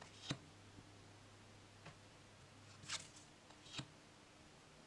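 Stiff tarot cards being handled and laid down one at a time: a few faint short taps and slides over quiet room tone.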